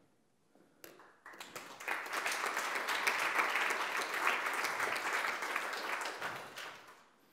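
Audience applauding, starting about a second in, holding steady, then fading out near the end.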